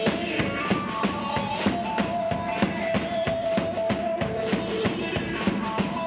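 Live band music: a drum kit beats a quick, steady rhythm of many strokes a second under a held electronic keyboard melody.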